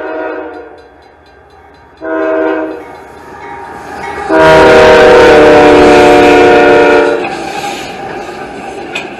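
CSX freight locomotive air horn sounding a chord in the grade-crossing pattern: a blast that ends just after the start, a short blast about two seconds in, and a long, loudest blast from about four to seven seconds. The rumble of the passing train and its wheels on the rails carries on beneath and after it, with a few clicks near the end.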